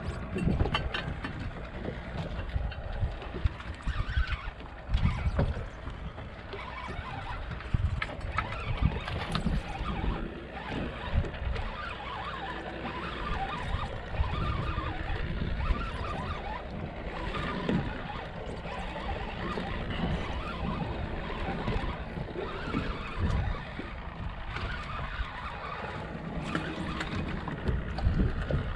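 Wind on the microphone and water noise, with scattered small ticks and knocks, as a spinning reel is cranked to bring a hooked fish up from the bottom.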